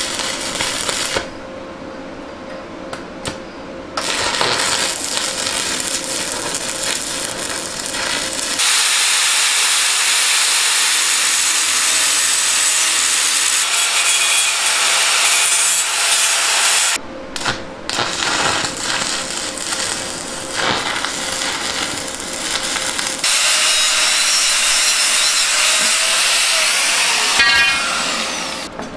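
Steel fabrication noise in several loud stretches that start and stop abruptly: electric arc welding on steel, and a hand-held angle grinder grinding steel. Near the end a tool's whine falls in pitch as it winds down.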